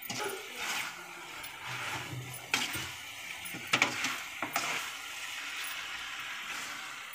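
A metal spatula stirring chicken pieces frying in an aluminium kadai, scraping the pan with a steady sizzle, with a few sharp clinks against the pan about two and a half, four and four and a half seconds in.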